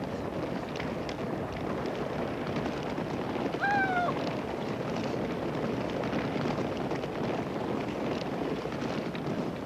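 A herd of horses moving over pasture, a steady noise of many hooves, with one short falling call about four seconds in.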